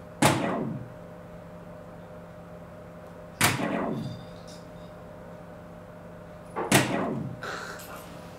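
Three soft-tip darts striking an electronic dartboard machine, about three seconds apart. Each is a sharp hit that rings out for about half a second.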